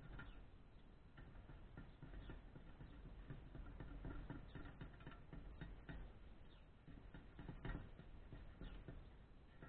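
Faint, irregular scratching and scraping of a hand tool worked over a thin metal plate, in short quick strokes.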